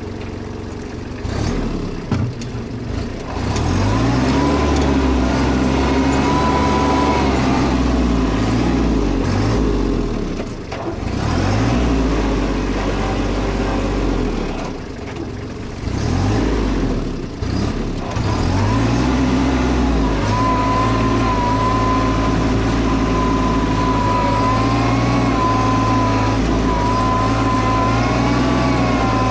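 Kubota B2401 compact tractor's three-cylinder diesel engine working hard while the tractor drives and does loader work, its revs dropping and picking back up several times, then running steadily at high revs with a steady high whine over it in the last third.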